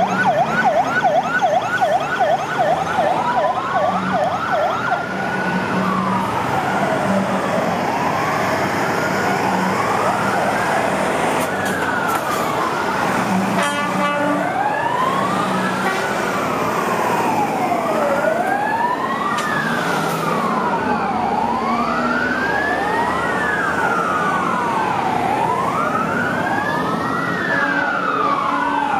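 Sirens of a convoy of fire engines driving past. For the first few seconds a fast yelp, about three sweeps a second, then several overlapping slow wails rising and falling, with truck engines running underneath.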